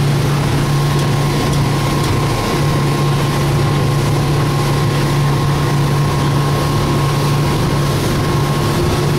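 Honda 225 four-stroke outboard motor running steadily under way at cruising speed, a constant engine hum with the rush of the boat's wake and wind over the microphone.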